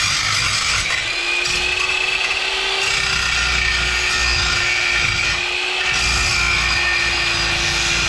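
Electric power saw running steadily under load, cutting through stock, with a steady motor whine that dips briefly about a second in.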